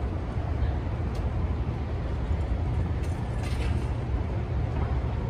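City street traffic: a steady low rumble of passing vehicles, with a brief hiss about three seconds in.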